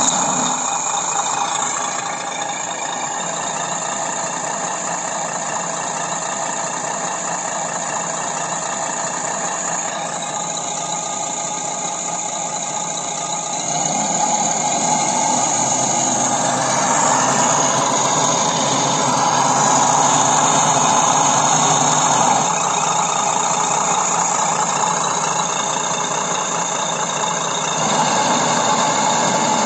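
Simulated truck diesel engine sound from an RC sound module, played through a small speaker in the cab of a 1/14 Mercedes-Benz RC truck. It idles steadily, then rises in pitch and loudness about halfway through as the transmitter's throttle stick is worked, and settles back later.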